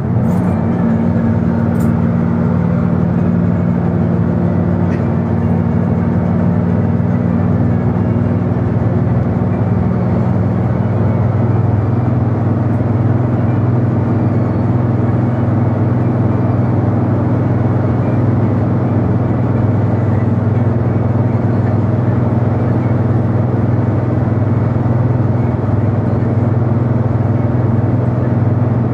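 Motor vehicle engine and road noise heard from on board while driving along a highway: a steady low drone whose pitch bands shift slightly about ten seconds in, over a constant rush of tyre and wind noise.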